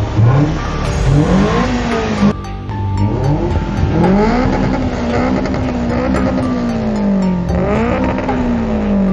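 Toyota Corolla Twincam 16's four-cylinder engine being revved hard and let fall back: a quick climb cut off sharply about two seconds in, then a longer climb held high for a few seconds, a dip and one more rise and fall near the end. Music plays underneath.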